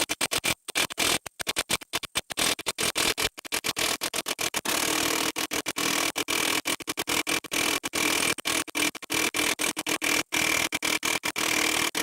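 Milwaukee 1-inch cordless impact wrench running in reverse, hammering continuously with a rapid rattle and a steady whine as it works a rusted-on nut loose.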